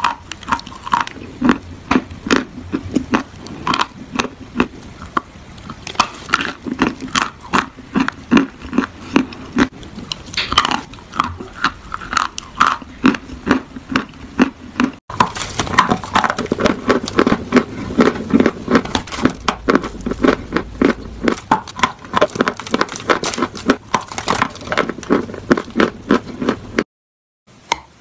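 Close-up crunching and chewing of a mouthful of chalk: dense, crisp crunches several times a second. The sound changes character about halfway in and cuts out briefly near the end.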